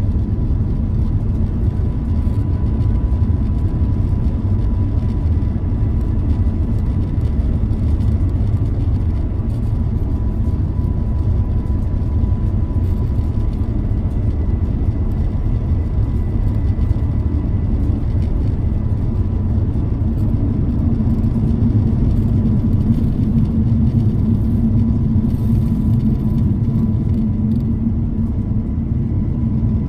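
Cabin noise of an Airbus A350-900 at takeoff thrust from its Rolls-Royce Trent XWB engines: a loud, steady, deep rumble through the takeoff roll, liftoff and initial climb, with a low hum growing stronger in the latter part.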